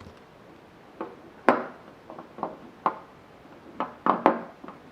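Two 1/4-inch hand ratchets being handled: about nine separate, irregularly spaced metallic clicks and knocks, each with a short ring, clustered more tightly near the end.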